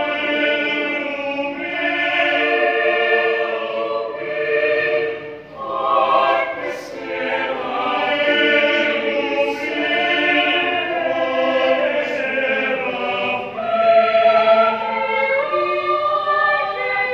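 Mixed church choir of men's and women's voices singing in harmony: held chords that change every second or two, with a short break for breath about five and a half seconds in and a louder passage about fourteen seconds in.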